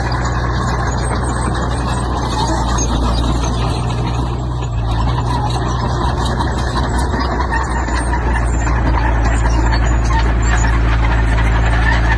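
Heavy construction machinery's diesel engine running steadily, with a continuous rough, gritty noise over it.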